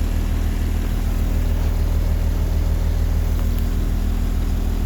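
Blue Bird bus engine idling steadily, a low even drone with no change in speed.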